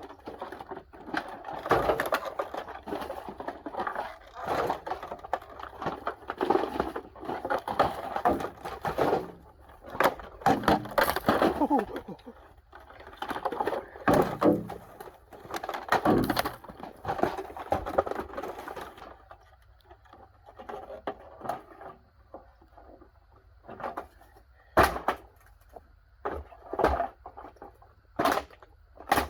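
Parts of a dehumidifier being pulled apart by hand: continuous clattering, scraping and knocking of its plastic and metal parts, which thins out to a few separate sharp knocks over the last several seconds.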